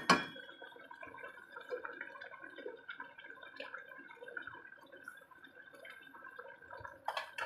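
Thick braising sauce of pork humba simmering in a stainless steel pot, with a steady run of small bubbles popping. There is a sharp knock at the very start and another near the end.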